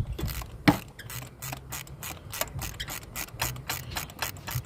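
Socket wrench ratchet clicking in quick, even strokes, about five clicks a second, as a 5/8 spark plug socket unscrews an already broken-loose spark plug.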